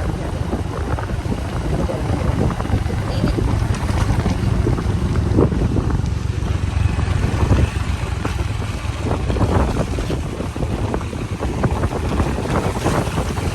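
A road vehicle in motion: a steady low rumble of engine and road noise with scattered small knocks, and wind buffeting the microphone.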